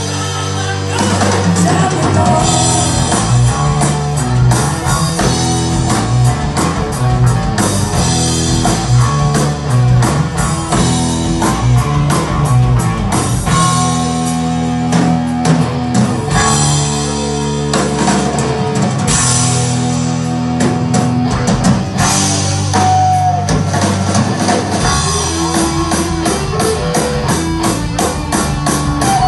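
Live rock band playing: electric guitars over a drum kit with steady beats.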